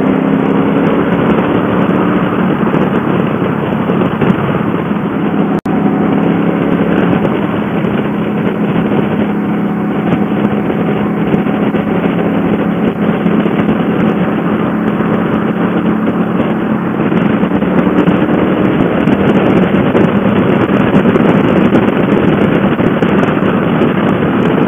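Wind rushing over the microphone with a Suzuki Boulevard M50's V-twin engine running steadily underneath at highway speed. The sound cuts out for an instant about five and a half seconds in.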